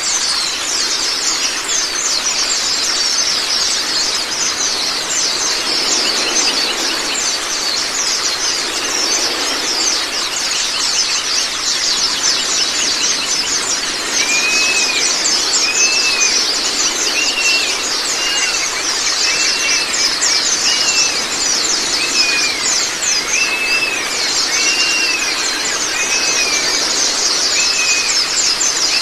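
White-eyes (Zosterops) singing a dense, rapid, high-pitched chattering song over running water. From about halfway, a short arched whistle repeats roughly once a second.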